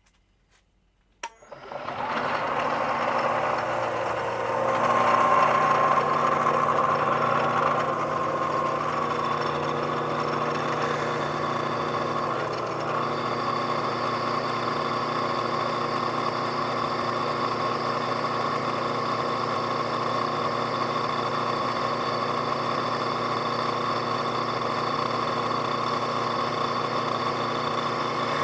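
Milling machine switched on with a click about a second in, spinning up and then running steadily with a hum and whine. It gets louder for a few seconds shortly after starting, then settles back to a steady run, in keeping with drilling mounting holes.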